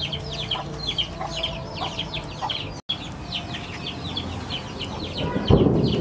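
Chickens calling in a steady stream of short, high chirps, several a second. About five and a half seconds in, a louder scraping as a metal spoon stirs the meat paste in a metal tray.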